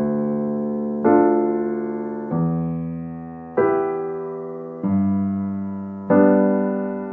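Calm, slow instrumental background music. Sustained chords are struck about every second and a quarter, each left to ring and fade before the next.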